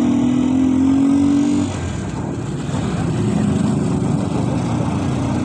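Small vehicle engine running while driving. The engine note drops off about one and a half seconds in, then picks up again, with road and wind noise underneath.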